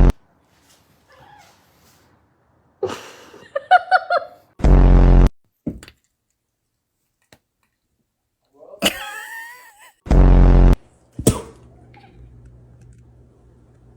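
Three identical short, low, buzzing blasts, each under a second and about five seconds apart, with fainter higher cries that glide up and down between them.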